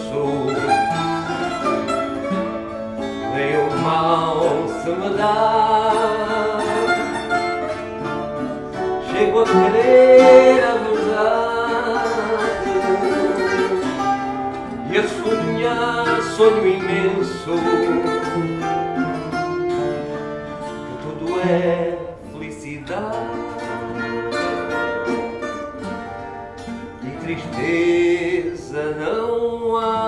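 A small ensemble of plucked string instruments, guitars and Portuguese folk violas, playing a folk song together, with a melody line over strummed and plucked chords.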